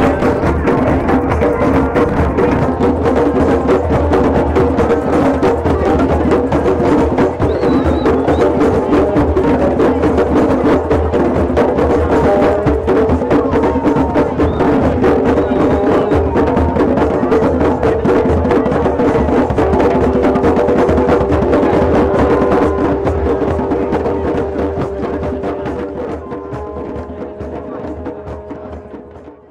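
Drum circle: many drums and percussion played together in a fast, dense rhythm, with a held note over it later on. It fades out near the end.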